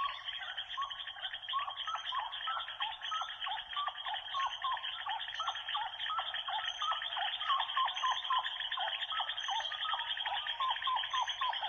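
A rapid run of short, high chirping animal calls, several a second, keeping up throughout.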